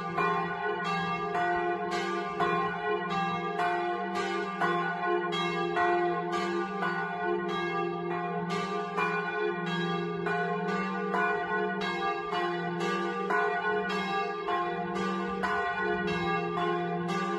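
Two bronze church bells cast by the Magni foundry, tuned to F3 and G3, rung in a doppio: both swing and their clappers strike in a regular alternating pattern about twice a second, the hum of each stroke ringing on under the next. Heard from close under the bells in the belfry.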